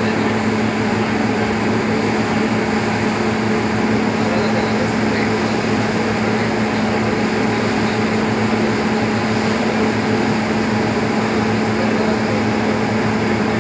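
Steady drone of a boat's engine running at constant speed underway, a loud, unchanging hum that holds one pitch throughout.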